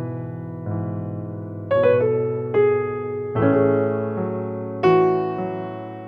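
Background music: slow, soft piano (electric piano) with notes and chords struck and left to ring and fade.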